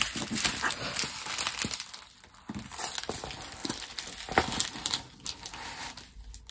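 Plastic packaging crinkling and rustling as small bags of diamond painting drills and the sleeved canvas are handled and put away, with many small irregular crackles.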